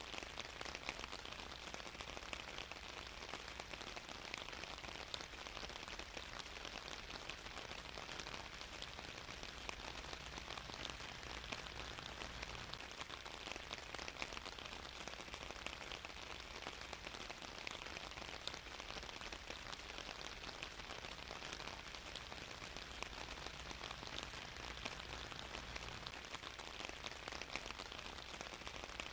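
Steady rain falling, a dense, even hiss of countless small drop ticks without let-up.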